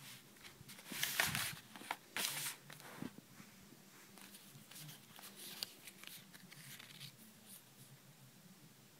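Paper stickers and postal labels being handled and shuffled by hand: two louder rustles in the first few seconds, then light crinkles and small taps.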